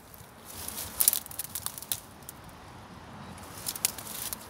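Dry dead bracken, brambles and leaf litter crackling and rustling as someone pushes through on foot, in scattered sharp crackles, loudest about a second in.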